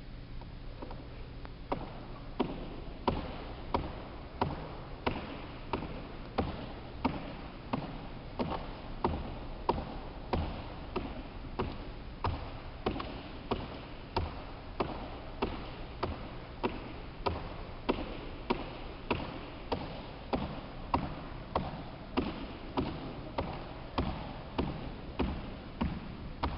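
Sneakers landing on a wooden court floor in steady repeated squat jumps, one sharp thud about every two-thirds of a second, starting about two seconds in. A steady low hum runs underneath.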